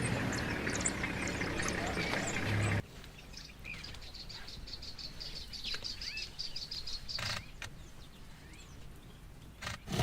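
Wild birds chirping and calling over a steady outdoor background. About three seconds in the sound cuts abruptly to a quieter stretch with scattered chirps and a fast, high, evenly repeated trill.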